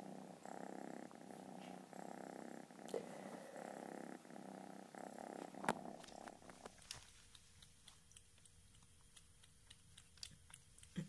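A ginger kitten purring close to the microphone, the purr swelling and fading in regular breath cycles about once a second. About six and a half seconds in, this gives way to a seal-point cat lapping milk from a dish, heard as faint, quick little clicks.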